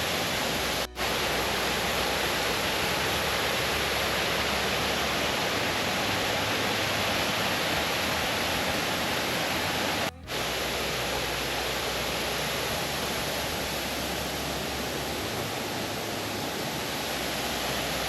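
Waterfall rushing steadily, an even wash of falling water, broken by two very short dropouts about a second in and about ten seconds in.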